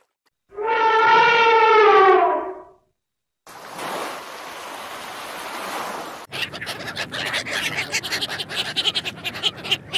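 An elephant trumpets once, a long call lasting about two seconds that falls slightly in pitch. Then surf washes on a sandy beach for a few seconds, and near the end mallard ducks make a rapid run of clicking chatter.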